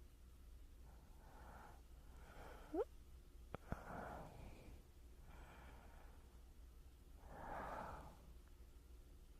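Soft, slow human breathing close to a binaural microphone, about five gentle breaths in and out. A brief rising squeak comes a little under three seconds in, then a sharp lip click just after.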